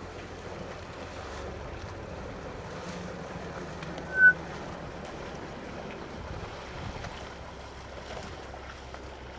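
Steady wind noise on the microphone over faint water sounds from elephants wading at the edge of a waterhole. One short, high whistled note, about four seconds in, is the loudest sound.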